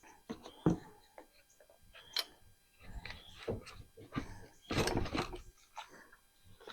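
Light clicks and knocks of small metal and plastic parts being handled as the threaded clutch is unscrewed and lifted off a Craftsman 4-cycle string trimmer engine. There is a sharp click about two seconds in and a longer rattling scrape around five seconds in.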